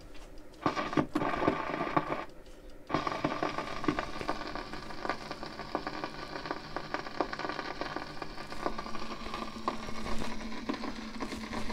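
Record player's needle riding the lead-in groove of a record: a steady crackle and hiss, full of fine clicks, before the music begins. It starts about a second in and drops out briefly a little after two seconds.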